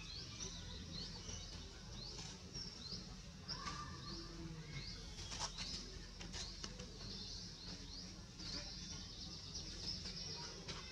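Birds chirping in the trees: short high chirps repeated about twice a second, with a few sharp clicks near the middle.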